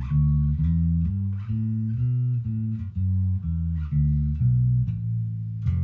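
Squier Bass VI six-string bass played fingerstyle: a steady line of single low notes, changing about twice a second.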